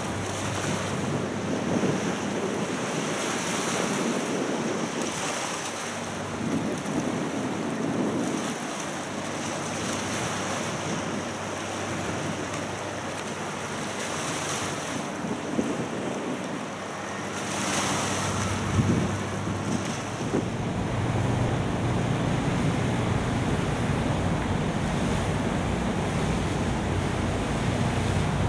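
Wind gusting on the microphone over the wash of harbour water. About two-thirds of the way through, a low, steady engine drone sets in as the small ferry boat comes toward the pier.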